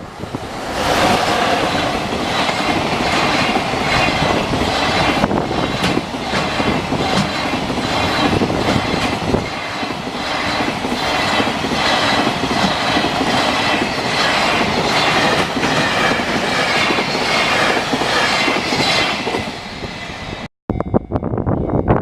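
A train passing close by, its wheels clattering over the rail joints in a steady, even rhythm. The sound cuts off abruptly near the end.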